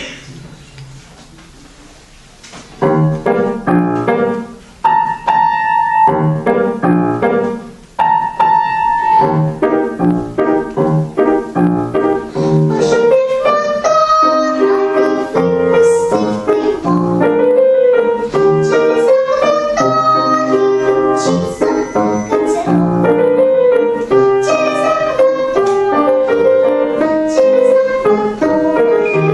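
A piano starts the introduction of a children's song about three seconds in, after a short stretch of quiet hall sound. About halfway through, a girl's voice joins, singing the melody over the piano accompaniment.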